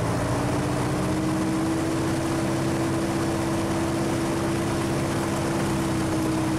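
Piper Archer's engine and propeller heard from inside the cockpit, the engine note rising at the start and then holding steady at a higher speed: the engine run up for the pre-takeoff ground check at about 2000 RPM.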